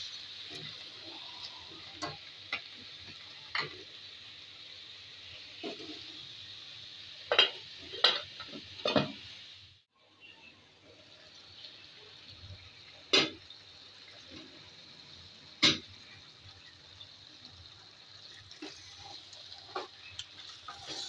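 Beef and chana dal sizzling in a pot while a wooden spatula stirs and scrapes through them, with sharp knocks against the pot. The loudest knocks come in a quick cluster about seven to nine seconds in and singly a few seconds later. The sizzle briefly drops out just before the middle.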